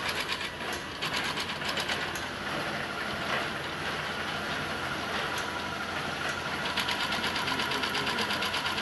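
Industrial ox-horn (horn-arm) bag sewing machine running and stitching, with a rapid, even clatter of the needle stroke over a steady motor hum. The stitching runs fastest near the start and again near the end.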